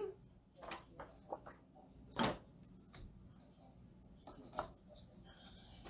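Light knocks and taps of small sign boards being handled and set down on a table, a handful of separate knocks with the loudest about two seconds in.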